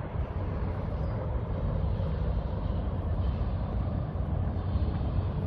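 Steady rumble of motor traffic, with no single event standing out.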